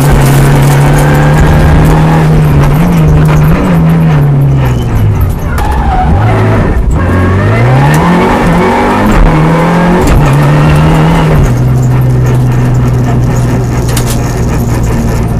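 Renault Mégane N4 rally car engine heard from inside the cockpit at speed. Its revs hold steady, then fall and climb repeatedly through gear changes in the middle, then settle at a steady lower pitch near the end.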